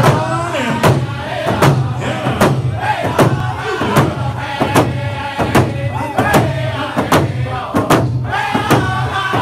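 A group of singers chanting a song together over rawhide hand drums struck with beaters in a steady beat, about one strike every 0.8 seconds. The melody opens on high notes and falls.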